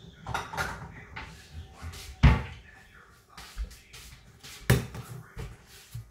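Kitchen cupboard being rummaged, with dishes clattering and a loud knock about two seconds in as it is shut. Near five seconds a ceramic bowl is set down on the steel counter with a sharp knock.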